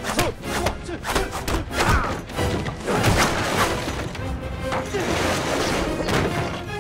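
Film fight-scene soundtrack: music under a rapid run of hits, thuds and crashes as fighters strike and fall onto wooden boards.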